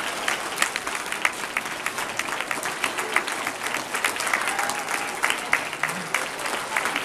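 A crowd of children and adults applauding, with many hands clapping unevenly and steadily, mixed with scattered voices.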